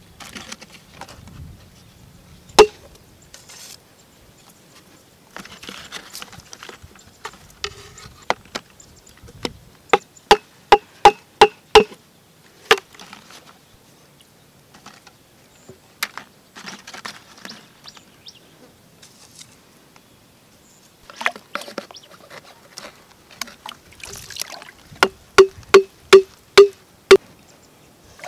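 Hands working in shallow muddy water with light splashing, broken by sharp, hollow knocks: one about two and a half seconds in, a quick run of about seven around ten seconds in, and another run of about six near the end, roughly three a second.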